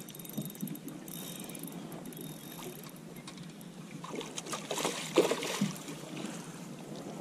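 Hooked smallmouth bass splashing at the surface as it is scooped into a landing net. The splashing is loudest about five seconds in.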